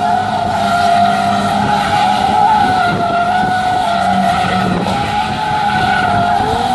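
Stunt car's tyres squealing in a long, unbroken skid, a wavering high squeal over the running engine, as in drifting or spinning donuts.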